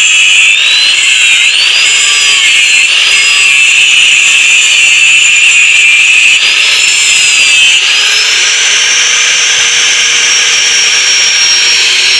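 Corded handheld power tool running loudly under load against the metal of a combine harvester's header, its high whine wavering up and down in pitch. About eight seconds in, the pitch steadies and the sound drops slightly.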